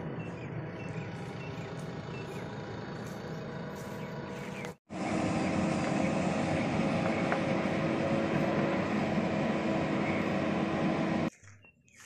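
JCB 3DX backhoe loader's diesel engine running steadily under load while it works the digging arm. The sound cuts out for a moment about five seconds in, comes back louder with a steady held tone, and stops abruptly near the end.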